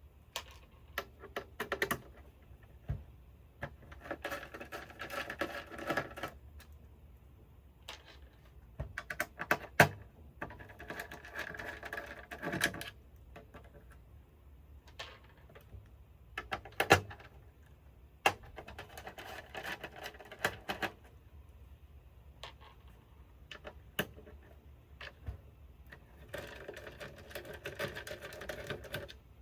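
A screwdriver backing out small screws from an oscilloscope chassis. It works in bursts of a couple of seconds, one per screw, with sharp clicks of screws and parts being set down in between.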